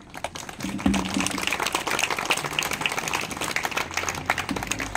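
Audience applauding: many hands clapping at once, growing louder about a second in.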